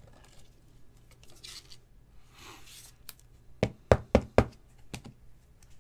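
Soft rustling of a plastic card sleeve, then four quick, sharp knocks of hard plastic card holders against the tabletop shortly past the middle, and one lighter knock near the end.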